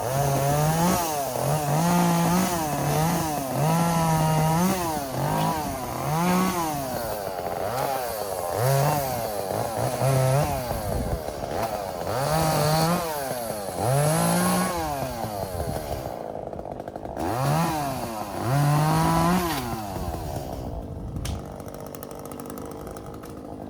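Echo chainsaw revving up to high speed and dropping back about a dozen times in a row, with the engine running at lower speed between revs.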